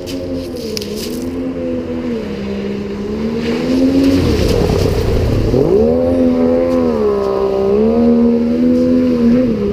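Boat engine running under way, its pitch dipping and rising several times as the throttle changes. It gets louder about four seconds in, with a brief rush of noise around the middle.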